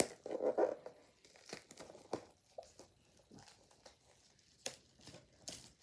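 Packaging being unwrapped by hand: irregular crinkling and rustling, loudest in the first second, with a few sharp crackles.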